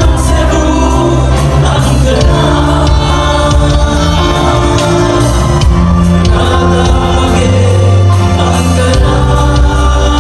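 Live band playing loudly with singing over it: drum kit hits on a steady beat, a deep moving bass line and sustained keyboard notes.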